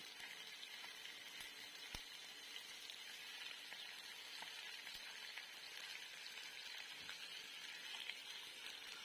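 Boneless chicken thigh pieces frying faintly in hot oil in a wok, a soft even sizzle. A few light clicks as pieces go in and the spatula touches the pan, one a little louder about two seconds in.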